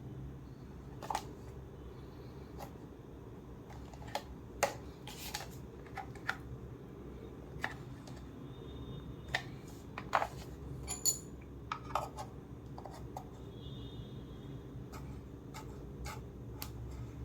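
Scattered sharp clicks and light knocks of small hard plastic and metal parts being handled while a Philips steam iron is taken apart, over a steady low hum.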